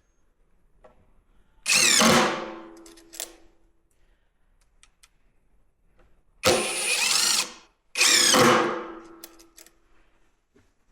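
A cordless drill driving screws through a barrel's metal hoop into the wooden staves, in three short runs of under a second each. The motor's pitch bends as it speeds up and slows.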